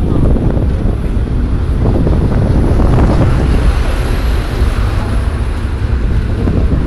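Passenger train running at speed, heard from inside the carriage by an open window: a loud, steady rumble of the wheels on the rails mixed with rushing air, swelling a little around the middle.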